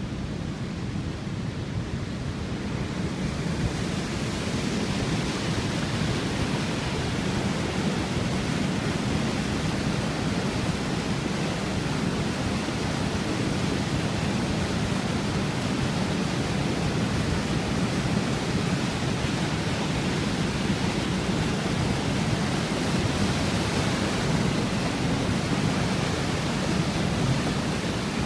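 Floodwater rushing over a weir and churning below it: a steady, loud roar of water. The sound grows fuller and hissier about three seconds in.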